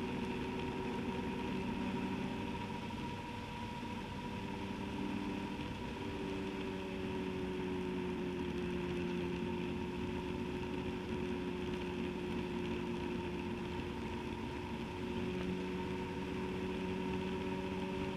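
Motorcycle engine running steadily at road speed, with wind and road noise. The engine note eases briefly a few seconds in, then holds steady.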